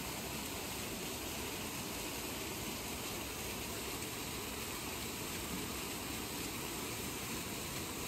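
Steady rushing of water falling down a mountain waterfall, an even hiss with no breaks.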